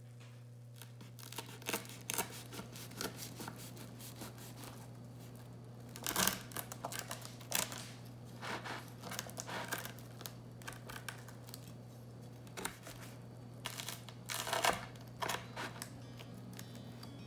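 Knife sawing through the slightly crisp crust of a baked sourdough focaccia, crunching and crackling in irregular bursts starting about a second in.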